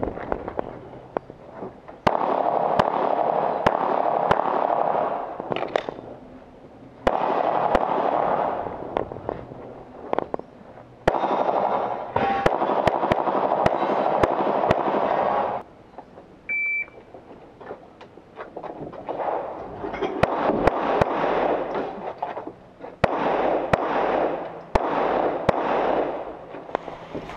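Pistol fire: many sharp shots in quick strings spread through the whole stretch, some strings followed by a few seconds of dense rushing noise. A brief high beep sounds about midway.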